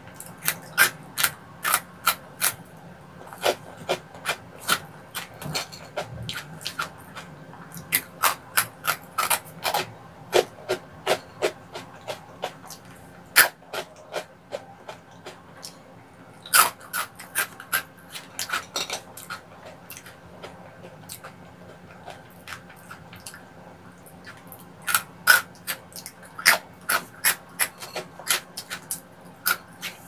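Close-miked crunching of crispy snack sticks, honey twist snacks (kkul kkwabaegi) and Cheetos, being bitten and chewed. The crunches come in runs of rapid, sharp cracks with short pauses between, and there is a quieter stretch a little past the middle.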